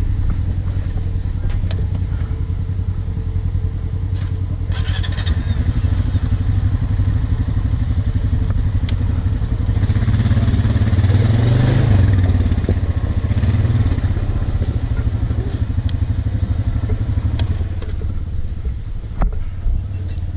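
Polaris RZR side-by-side engine running steadily, swelling louder for a few seconds around the middle before settling back.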